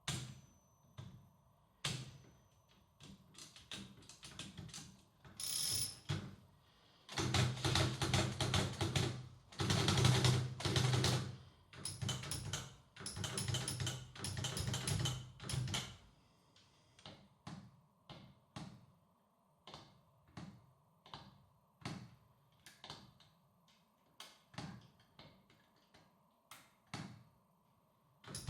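Hammond Multiplex type-shuttle typewriter being typed on: scattered single key strikes, then about nine seconds of rapid, continuous clattering keystrokes about seven seconds in, then slower separate strikes again.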